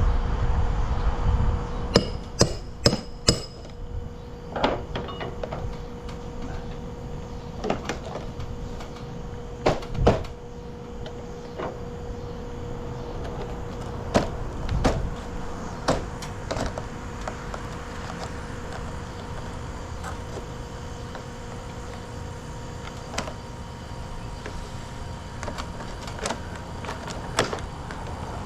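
Four quick hammer blows about two seconds in, then scattered knocks and clicks from work on vinyl siding, over a steady hum.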